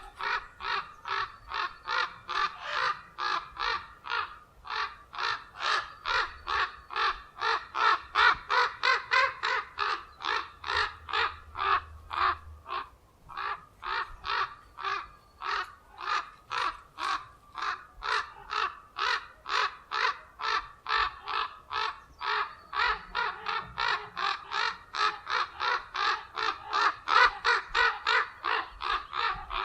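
Common ravens giving a rapid, unbroken run of harsh alarm calls, about two or three a second, with a brief pause near the middle: the warning calls of ravens defending their nest.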